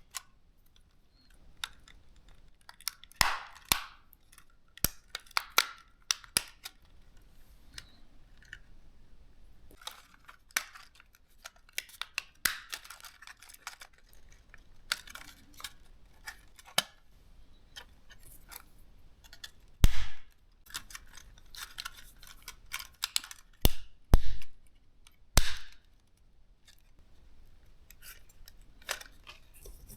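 Plastic snap-fit clips of a DJI Mini 3 drone's upper shell being pried loose and the housing handled: scattered sharp clicks and snaps, with a run of louder snaps about two-thirds of the way through.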